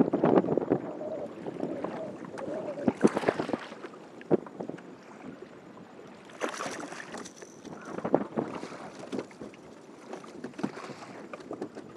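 Fishing kayak on the water: irregular rushes of water noise about three seconds in and again in the second half, with scattered knocks and clicks.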